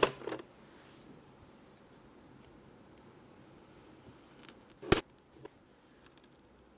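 Kinetic sand being worked with plastic toy tools on a tabletop: a short scrape right at the start, then a sharp tap about five seconds in followed by a few faint clicks.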